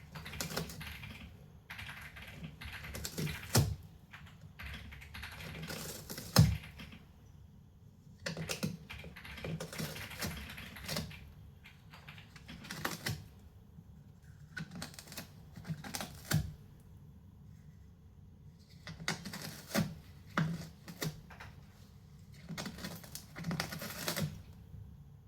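A cat scratching at cardboard in irregular bouts of scratchy rasping with short pauses between them. There are a couple of sharper knocks, the loudest about six seconds in.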